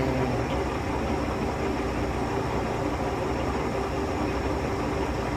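Mori Seiki MS-1250G engine lathe running, a steady mechanical hum from its 5 HP motor and geared headstock, with the carriage traveling under power feed.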